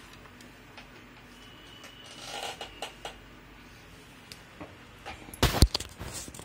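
Faint rustling handling noise in a quiet room, then one sharp doubled knock about five and a half seconds in, the loudest sound.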